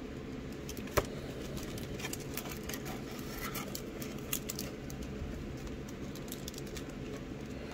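Cardboard trading-card box being handled and its top flap opened: scattered light clicks and rustles, with one sharp click about a second in, over a steady low hum.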